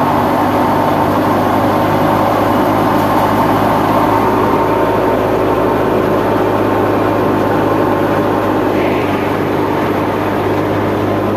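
Wheat thresher driven by a Fiat tractor's PTO, running steadily under load with an even mechanical drone and steady humming tones.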